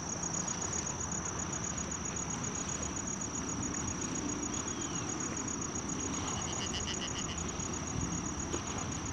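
Wind rushing over the microphone at a lakeshore, with a steady high-pitched whine throughout. A quick run of about eight chirps comes a little past the middle.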